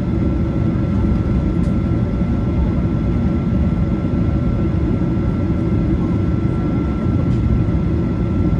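Inside the cabin of a Boeing 737-800 taxiing: a steady low rumble from its CFM56-7B engines at taxi power and the rolling wheels, with a thin steady whine above it.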